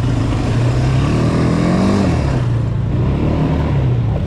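ATV (quad bike) engine running as it is ridden over a trail, with a steady low drone. The pitch climbs and then falls back between about one and two and a half seconds in as the throttle is opened and eased.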